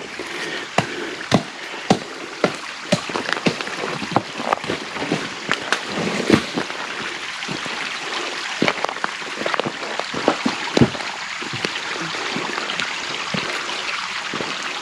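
Shallow creek water trickling steadily over slate, with irregular sharp clicks and knocks of loose slate shifting underfoot. The clicks come often for the first ten seconds or so and thin out near the end.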